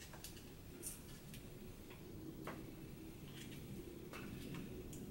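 Faint, irregular clicks and crinkles of a small plastic peach cup being handled before its fruit is poured out.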